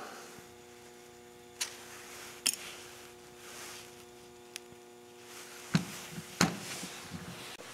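Handling noise from a pair of linked aluminium motorcycle CV carburetors being turned over and set down on a work mat: a few light clicks, then two sharper knocks near the end, over a faint steady hum.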